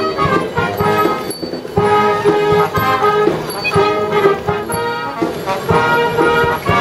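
Music playing loudly: a melody of held notes over a beat.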